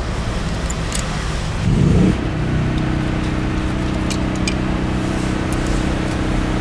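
A motor vehicle's engine running with a steady, unchanging hum that comes in about two seconds in after a brief louder rush. A few light clicks sound over it as the motorcycle's plastic hose and wiring connectors are handled.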